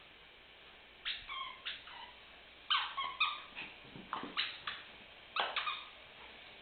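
A small Cairn terrier whimpering in a string of short, high-pitched cries, starting about a second in and repeating until near the end.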